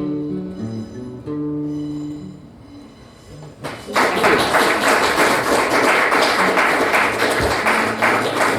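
Acoustic guitar playing the closing plucked notes of a folk tune, fading out about three seconds in. Then, from about four seconds in, a small audience breaks into loud applause.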